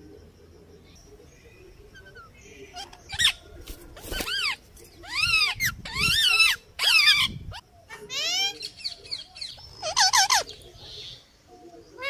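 Alexandrine parakeet calling: about seven short, loud squawks that arch up and down in pitch. They begin about three seconds in and come roughly once a second.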